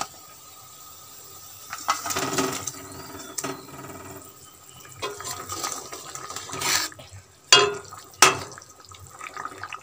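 Fried fish pieces slid off a steel plate into boiling curry gravy in a metal kadai, with the gravy bubbling and a metal spatula scraping through it. Two sharp knocks of the spatula against the pan come about three-quarters of the way in.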